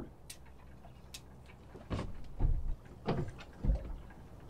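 Several dull thumps and knocks from someone moving about and handling gear on a small boat. They start about two seconds in, after a couple of faint clicks.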